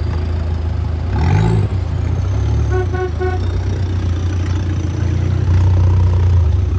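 Demolition-derby cars' engines running and revving on a dirt track, with three quick horn beeps about three seconds in.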